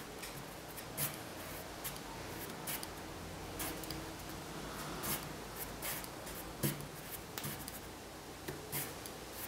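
Small pliers bending a thin wire, giving faint irregular clicks and scrapes of metal on metal over a low steady hiss.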